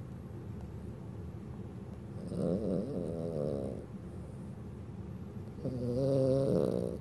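A sleeping dog snoring: two louder snores, each a second or more long and about three seconds apart, with a low steady rasp in between.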